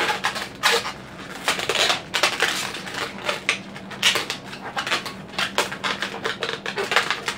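A long latex modelling balloon squeaking and creaking as it is twisted into four-finger bubbles and the bubbles are locked together, in many short, irregular squeaks.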